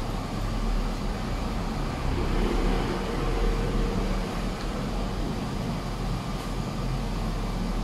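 Steady low rumbling background noise, even and unbroken throughout, with no distinct crunches or knocks standing out.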